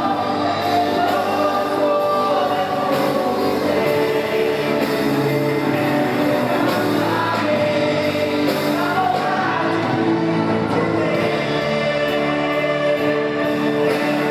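Live gospel worship music with several voices singing over a band, echoing in a large church hall.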